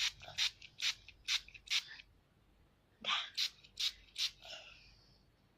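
Hand spray bottle being pumped repeatedly, each squeeze a short hiss of mist, about two or three a second. The spraying pauses about two seconds in and resumes a second later.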